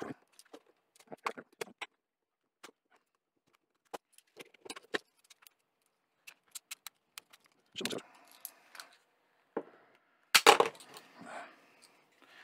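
Small flat-bladed screwdriver prying along the seam of a plastic USB powerbank case: a scatter of sharp plastic clicks and scrapes as the snap-fit clips are worked. About ten seconds in comes a loud snap as the case springs out of the hand and the little plastic clips clip back together.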